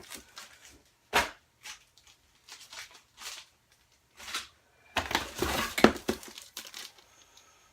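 Rustling and crinkling of plastic packaging as items are handled, in short scattered bursts, with a louder stretch of crackling about five seconds in.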